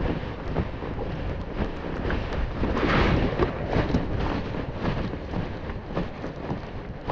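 Wind buffeting the microphone in a steady low rumble, with irregular splashes and slaps of water against an inflatable kayak, strongest about three seconds in.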